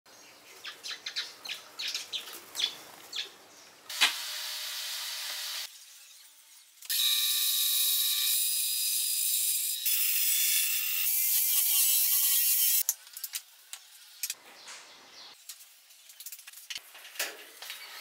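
Light clicks and taps, a short steady machine whir about four seconds in, then from about seven seconds some six seconds of loud steady power-saw noise: a bandsaw cutting through a wooden board. Scattered knocks of wood pieces near the end.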